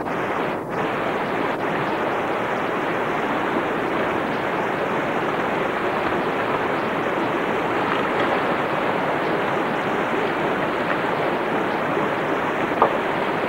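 Off-road four-wheel-drive vehicle's engine running hard under load on a steep, rocky climb, heard as a steady rushing drone with no rise or fall in pitch.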